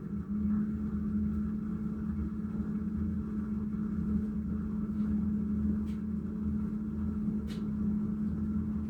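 LG direct-drive front-loading washing machine running its spin cycle: a steady motor hum with a low rumble from the turning drum, its pitch stepping up a little just after the start.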